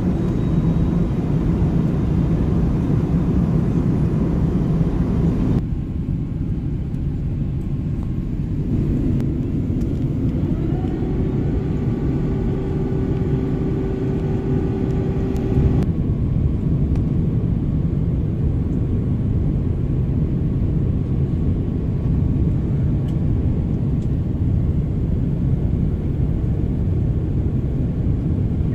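Steady rumble of a jet airliner's engines and airflow heard inside the passenger cabin in cruise. A faint steady hum joins it from about ten to sixteen seconds in.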